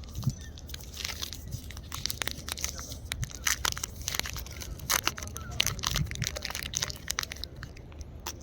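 Plastic wrapper of a Snickers Creamy Peanut Butter bar crinkling and tearing as it is opened, a dense run of sharp crackles.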